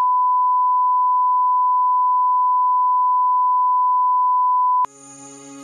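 Steady 1 kHz line-up test tone, the reference tone that goes with colour bars, cutting off abruptly about five seconds in. A quieter ringing chime with several held tones follows right after.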